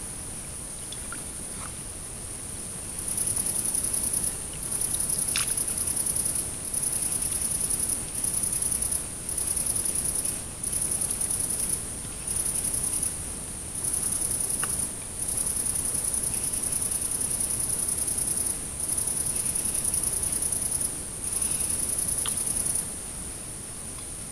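A singing insect stridulating: a high, buzzing trill in repeated bursts of one to two seconds with short gaps, starting about three seconds in and stopping about a second before the end.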